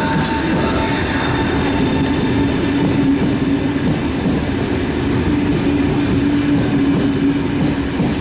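Electric passenger train running close by: a loud, steady hum over a continuous rumble.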